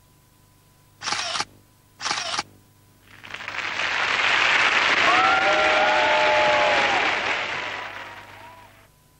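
Soundtrack of a TV ad-break ident: two short bursts of noise a second apart, then applause with a few whistles that swells up, holds and fades away.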